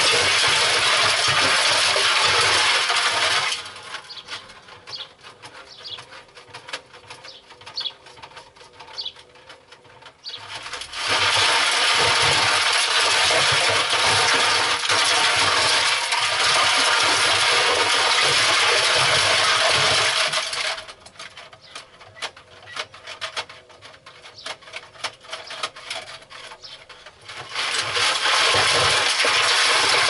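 LG front-loading washing machine drum turning with loose brick pieces inside, grinding and rattling against the steel drum. The drum stops twice for several seconds, leaving only faint clicks, then starts turning again.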